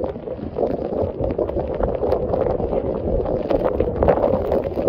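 Hail and heavy rain pelting down steadily, a dense patter of many small sharp hits, with wind rumbling on the microphone.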